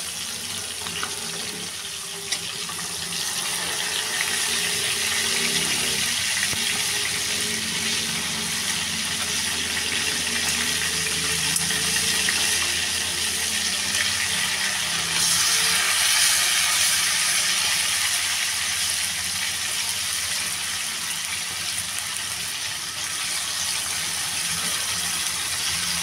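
Chicken pieces frying in hot oil in a pan, a steady sizzle that grows louder about fifteen seconds in as more pieces are laid in with tongs.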